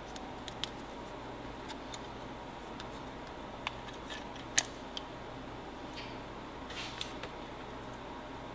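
A few scattered small plastic clicks and taps from a Saramonic UwMic9 wireless microphone transmitter being handled and fitted up, over a steady low room hum. The sharpest click comes about halfway through.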